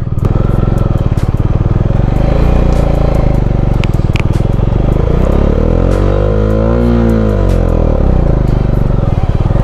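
Bajaj Dominar 400's single-cylinder engine running on the move, its pitch rising and then falling once past the middle as the throttle is opened and eased off.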